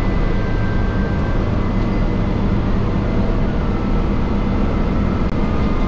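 Steady engine and road noise inside a moving transit bus, with a strong low hum.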